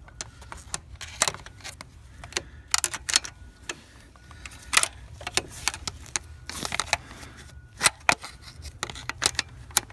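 Irregular small metallic clicks, taps and a brief scrape as a screwdriver probes among engine-bay parts to fish out a dropped nut, with phone handling noise.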